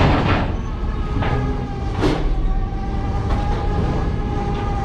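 Steady low rumble and hum of a crab fishing boat's engine and deck machinery, with a few sharp knocks as crab pots are handled, under background music.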